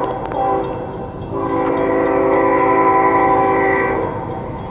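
Multi-note air horn of CSX locomotive 3206 sounding. One blast cuts off right at the start, a short blast follows, then a long blast ends about four seconds in. This short-then-long pattern is the close of a grade-crossing horn signal.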